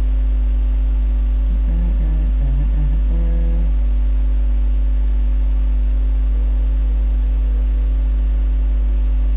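Loud, steady electrical mains hum with a low buzz, with a faint brief pitched murmur about two to three and a half seconds in.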